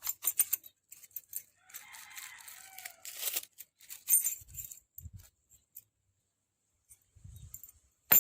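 Small parts and packaging being handled: scattered clicks, light metallic rattles and crinkling, with one sharp click near the end.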